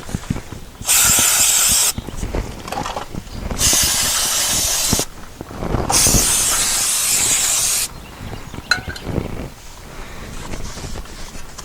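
Aerosol brake cleaner sprayed in three steady bursts of one to two seconds each, the later ones longer, with light clatter of parts and tools between them.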